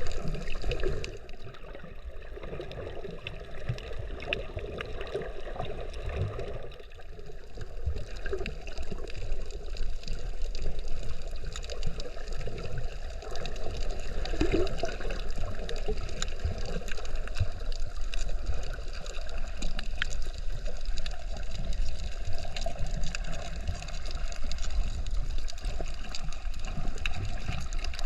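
Water sloshing and gurgling around a snorkeler's camera, with many small clicks and crackles throughout. It turns quieter for several seconds about a second in, then comes back up.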